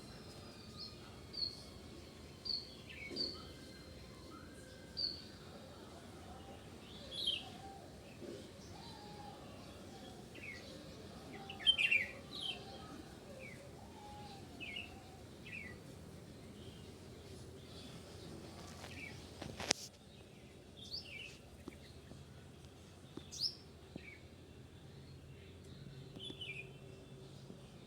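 Several birds chirping and calling, with short high notes scattered irregularly, some in quick runs, over a faint steady outdoor background. A single sharp click about two-thirds of the way through.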